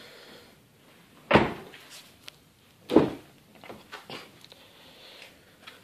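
Car doors being handled: two solid door thumps about a second and a half apart, followed by lighter clicks of the latch and handle.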